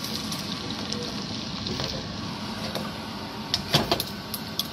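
Shell-on shrimp sizzling in butter in a nonstick frying pan, a steady frying hiss. A few sharp clicks near the end as chopsticks turn the shrimp against the pan.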